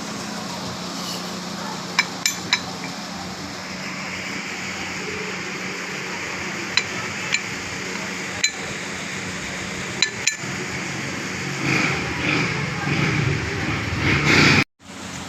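Metal tools and steel parts clinking and tapping in a workshop, a few sharp single clinks spaced out over a steady background hum. The clatter gets busier and louder near the end, then cuts off suddenly.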